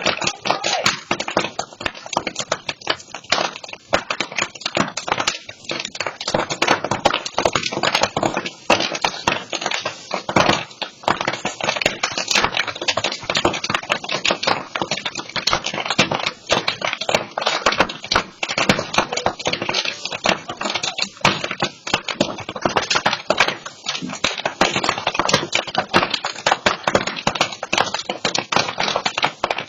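Burning brush pile crackling and popping: a dense, continuous run of sharp cracks and snaps.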